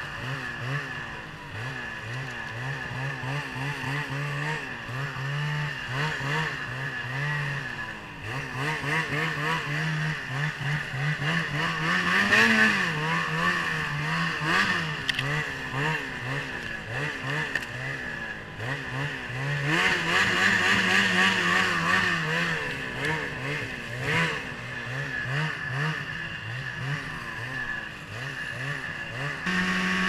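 Ski-Doo 800 E-TEC two-stroke snowmobile engine with an MBRP exhaust, its revs rising and falling over and over as the throttle is eased on and off. It rises to louder revs about halfway through and again about two-thirds of the way in.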